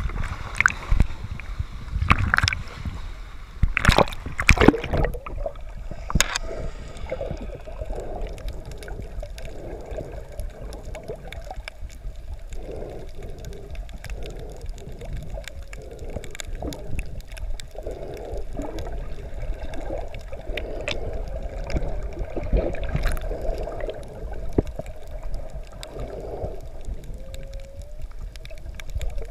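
Water splashing against a GoPro at the surface for the first few seconds, then muffled underwater gurgling and bubbling once the camera is submerged.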